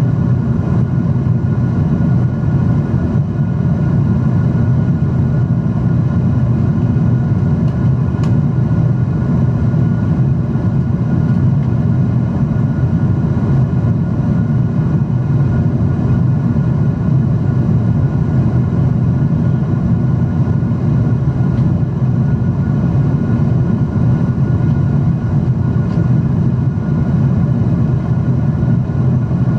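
Steady in-flight cabin noise inside a Boeing 777-300 airliner: an even, loud low rumble of the engines and airflow.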